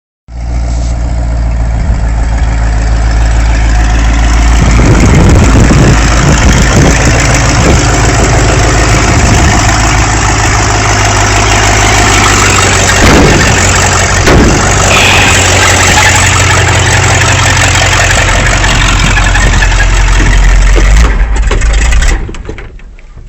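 1978 Ford F-150's replacement 302 small-block V8 running loudly, its exhaust noisy because the thermactor ports are left open and the engine still needs tuning. The sound drops away sharply near the end.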